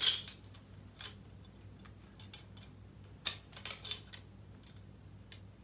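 Scattered light clicks and clacks of a set of plastic measuring spoons being picked up and handled, over a faint low hum.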